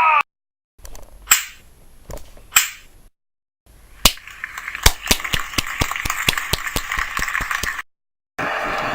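A cut-together string of short sound effects, each separated by a dead-silent gap: two single sharp cracks, then a few seconds of rapid, irregular clicking over a steady hiss, then after another gap a steady noisy sound near the end.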